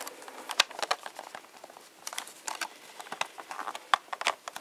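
Hands handling a hard plastic toy jet: irregular clicks and taps as plastic parts are pressed and fitted together.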